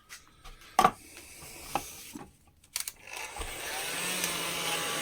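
A few knocks of handling, then a paint-stripping heat gun with a hot-air nozzle attachment is switched on about three seconds in, and its fan runs with a steady blowing hiss and a faint hum.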